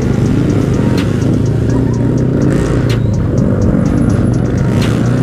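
Background music with a steady beat over a motorcycle engine running at low speed in slow traffic.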